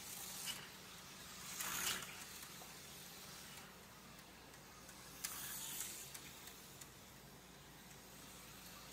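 Aurora slot car running around a small oval track, its tiny electric motor whirring up and down in two brief swells as it passes, over a steady low hum.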